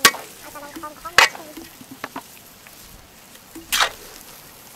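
Big wok of instant noodles frying with a steady sizzle, while a metal spatula strikes and scrapes the wok three times: right at the start, about a second in, and again near the end.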